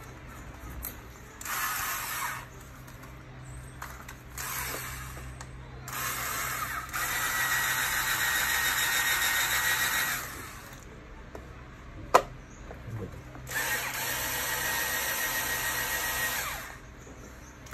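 Cordless drill running in four separate bursts, the longest about four seconds, as it drills out the rivets holding an old MCB circuit breaker's case together; the drill bits are worn. One sharp click comes about twelve seconds in.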